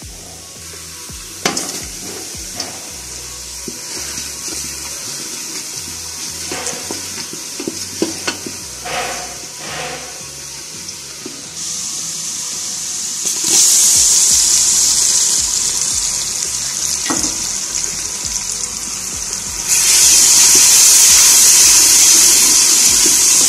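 Tomato masala frying in hot oil in a metal pot: a sizzling hiss that gets louder in steps and is loudest near the end while it is stirred. There are a few knocks of utensils early on.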